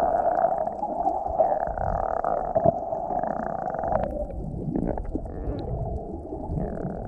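Muffled underwater sound from a camera held below the surface: a low watery rumbling and gurgling, with a steady hum that stops about four seconds in.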